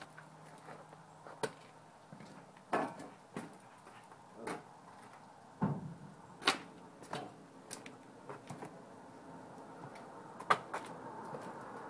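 Scattered light clicks and knocks, about a dozen at irregular spacing, over a faint steady background.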